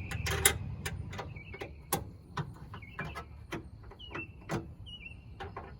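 Hand tools clicking and clinking against metal in a truck's engine bay: a dozen or so sharp, irregular clicks. Birds chirp briefly in the background.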